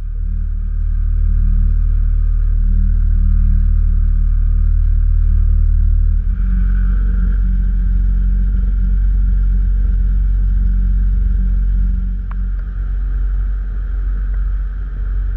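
A small boat's outboard motor running steadily under way. Its note changes about six seconds in.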